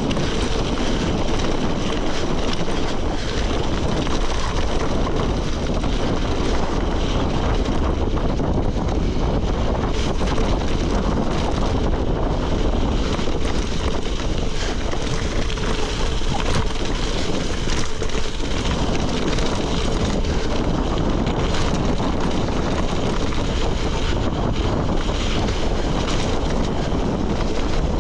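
Gravel bike rolling fast downhill on a loose gravel road: steady wind rush on the microphone over the rumble and rattle of tyres and bike on gravel, with constant small clicks of stones.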